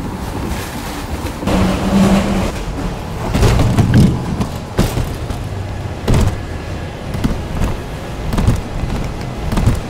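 Airport baggage-handling conveyors heard from a suitcase riding on them: a steady mechanical rumble and low motor hum, broken by several sharp clunks and knocks as the bag is jolted along the belts.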